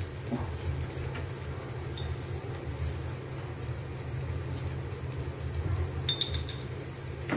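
Beef masala frying dry in a pot on low flame: a steady soft sizzle and crackle, with a low steady hum underneath.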